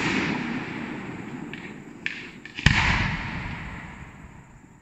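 Aerial firework ball shells bursting: the long rolling echo of one shell's bang dies away, then a second sharp bang comes about two and a half seconds in and echoes through the valley as it fades.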